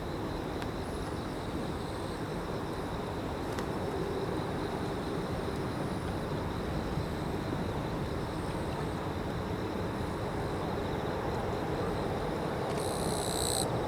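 Steady vehicle rumble that slowly grows louder, with a brief high-pitched sound near the end.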